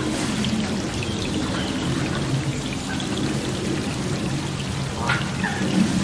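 Steady heavy rain pouring down.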